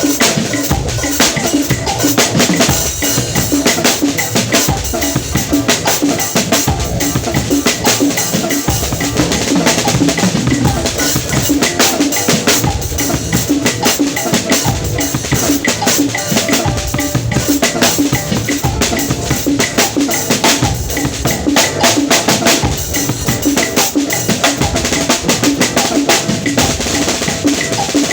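A drum kit played continuously in a busy pattern of rapid strikes.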